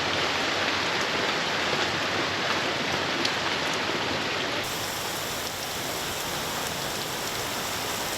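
Steady rain falling, an even, dense hiss with a few separate drop ticks.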